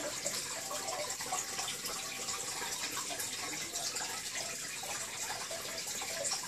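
Aquarium water splashing and trickling steadily at the surface, with many small drips and splashes.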